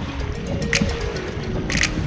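Background music: a melody of short notes with a few sharp percussive hits, over a low rumble.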